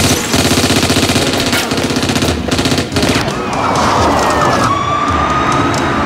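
Rapid automatic gunfire for about the first three seconds as shots hit a car, then car tyres squealing as a large sedan skids and spins its wheels, over a film score.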